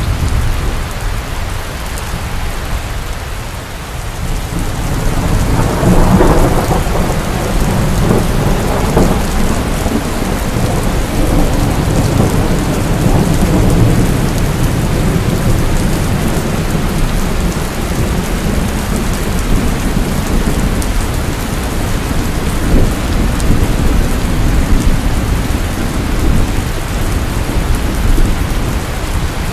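Heavy rain falling steadily with thunder: a rumble dies away at the start, then a clap builds about six seconds in and rolls on as low rumbling.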